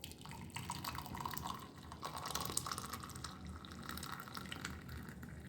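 A pepper-and-garlic kashayam decoction being poured through a strainer into a glass, the liquid running and splashing as the glass fills.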